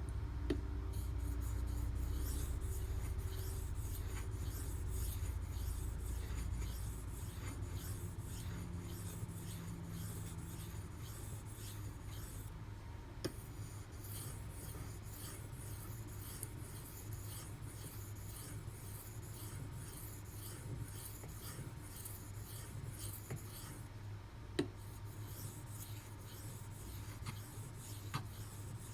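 D2 steel knife edge scraping back and forth across a wet sharpening stone in steady strokes, about two a second, with a few sharp clicks. A low hum fades out over the first several seconds.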